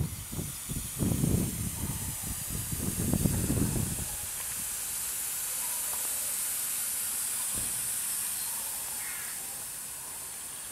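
1-inch scale Minnie model steam traction engine giving off a steady high hiss of steam. Irregular low rumbling runs through the first four seconds, then stops.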